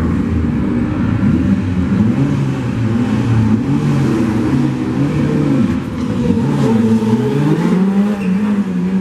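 Mitsubishi Lancer Evolution rally car's turbocharged four-cylinder engine running at an uneven, wavering idle, its revs rising and falling, then climbing as the car pulls away near the end.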